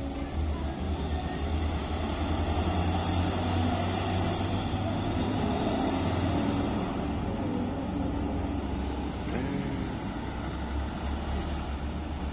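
Diesel truck engines running at low speed as the trucks move off and pass, a steady deep engine sound under road traffic.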